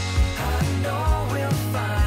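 Background music: a pop-rock song with a steady beat, bass and a melodic vocal line.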